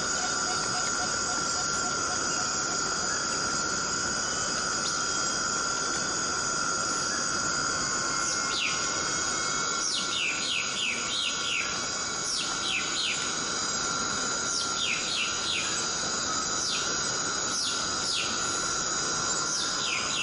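Forest cicadas droning steadily in chorus. From about eight seconds in, quick falling calls sound over the drone, singly and in short runs.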